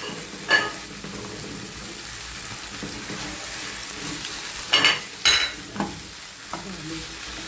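Pieces of liver sizzling in a pan of onion and tomato as they are stirred in, with a spoon knocking against the pan three times: once about half a second in and twice close together near five seconds.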